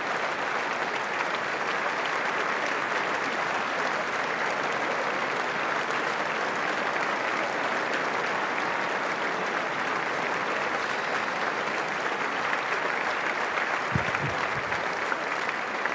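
A large crowd applauding steadily, a dense and even clapping that does not let up.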